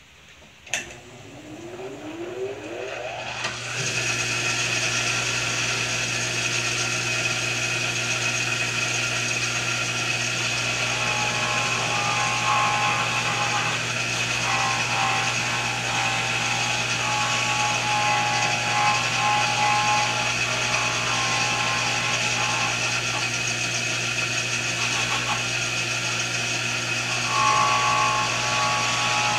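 Bench grinder fitted with a 3-inch buffing wheel switched on with a click, its motor winding up over about three seconds to a steady hum. From about ten seconds in, brass is pressed against the spinning buffing wheel, adding an uneven higher tone that comes and goes, strongest near the end.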